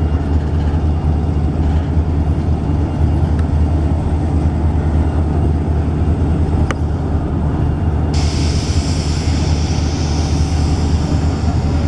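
Freight train cars rolling past on the rails with a loud, steady low rumble. A high hiss comes in suddenly about eight seconds in.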